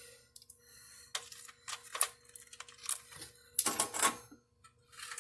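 Metal hand-tool clicks and clinks of a socket wrench working a bolt, scattered single clicks with a denser run of clicks about four seconds in.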